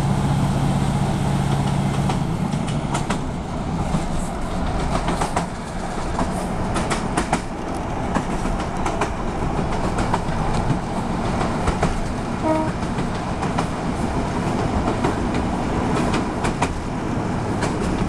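A train running along the track, heard from inside a carriage: a steady rumble with irregular clicks from the wheels over rail joints. A low steady hum stops about two seconds in, and a brief pitched tone sounds about twelve seconds in.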